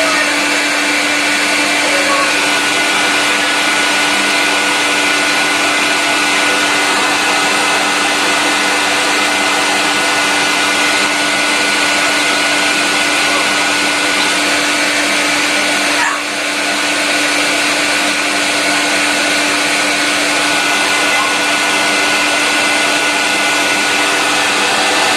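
Hair dryer running steadily: a constant rush of air with a steady motor whine, dipping briefly about two-thirds of the way through.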